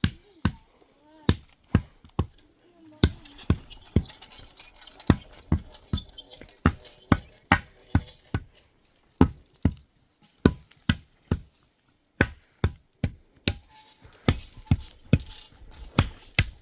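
A series of sharp taps or knocks, irregular, about two or three a second.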